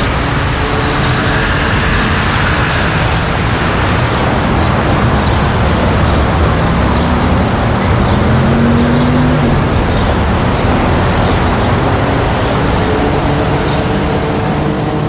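Busy street traffic: a steady wash of car engine and tyre noise. A vehicle's engine note rises briefly around the middle.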